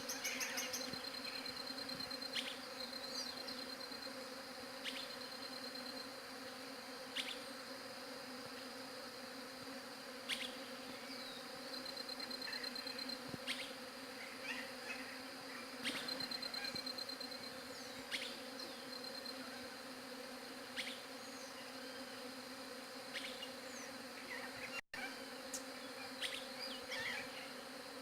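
Many bees buzzing steadily in a low, even hum, with a high insect trill above it and short faint chirps now and then.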